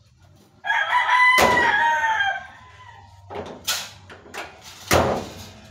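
A rooster crows once, a single long call that falls slightly at the end. Partway through the crow a car bonnet slams shut with a sharp bang, and a second heavy thump comes near the end.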